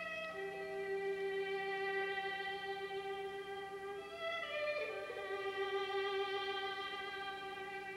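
Slow background score led by a violin holding long notes, moving to a new note about halfway through.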